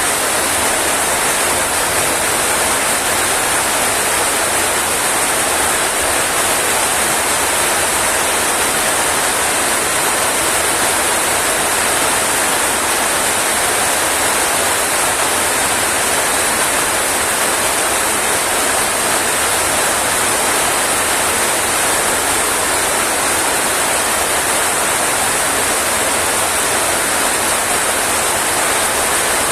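Heavy rain falling, a loud, steady, unbroken hiss with no separate drops or drips standing out.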